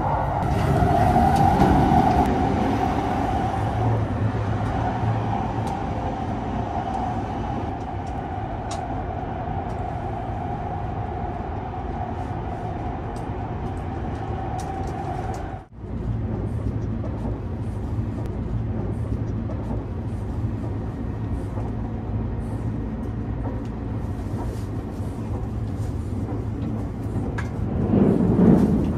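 Steady running noise heard inside a carriage of the Sunrise Seto, a 285-series electric sleeper train, while it is moving: a continuous rumble with a steady hum that drops out abruptly for a moment about halfway, then resumes.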